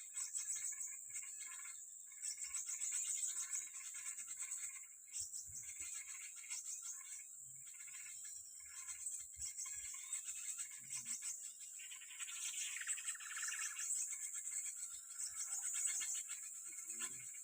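Small birds chirping and calling over a steady high-pitched insect buzz, with a busy run of rapid chirps about twelve seconds in.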